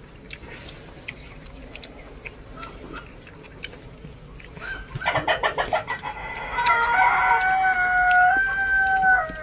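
A rooster crowing: a run of quick short notes about five seconds in, then one long drawn-out call held for nearly three seconds. The call steps slightly up in pitch near its end and then breaks off sharply.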